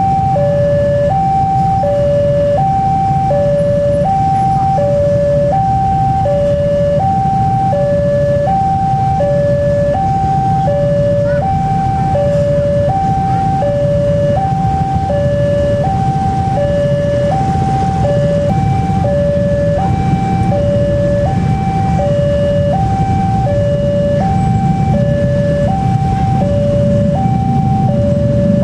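Railroad crossing warning alarm: an electronic two-tone signal alternating high and low, about one cycle a second, warning that a train is approaching while the barrier is down. Beneath it runs a steady low rumble.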